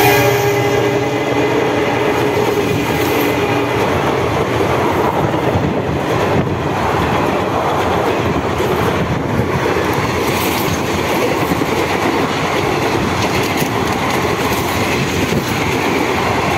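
Indian Railways passenger coaches passing at speed through a station without stopping: a steady loud rush of wheels clattering over the rails. The tail of the locomotive's horn fades out over the first few seconds.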